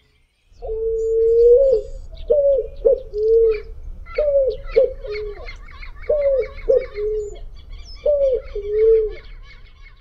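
Picazuro pigeon (asa-branca) cooing: one long coo, then four repeated phrases of shorter low coos about two seconds apart. Small birds chirp faintly behind it.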